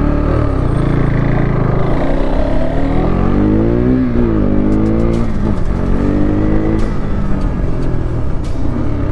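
Motorcycle engine running on the move, its pitch rising and falling several times as the throttle is opened and closed, over a steady low engine drone.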